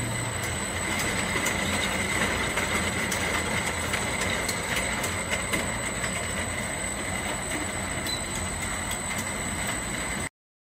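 Potato grader-halver machine running: a steady metallic rattle with a constant high whine and scattered light clicks, cutting off abruptly near the end.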